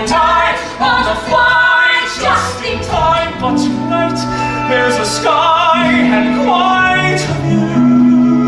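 Music: a voice singing long notes with vibrato over a held orchestral accompaniment.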